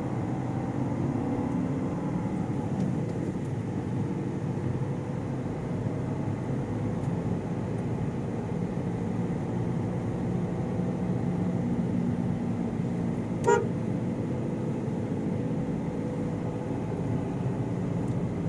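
Steady engine and road noise of a moving car, with one short car-horn toot about two-thirds of the way through.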